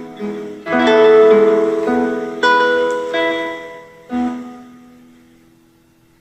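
Acoustic guitar played fingerstyle: a few plucked chords, the last struck about four seconds in and left to ring out, fading away as the piece closes.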